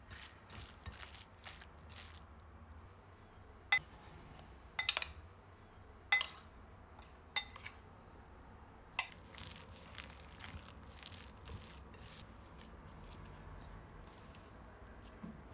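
A metal spoon clinking against a glass bowl and the ceramic mixing bowl while flour is spooned out: about six sharp clinks spread over five seconds. Before and after them come soft, faint squishing and ticking from hands working a wet potato mixture.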